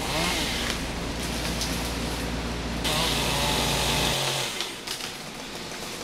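Chainsaw engine running at a low idle, with a short rev near the start, that cuts off about four seconds in, leaving a steady hiss.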